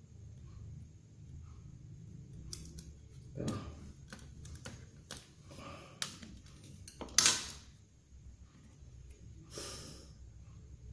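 Scattered small clicks and taps of tools and small parts being handled on a workbench during a phone power-switch repair, with one louder sharp click about seven seconds in.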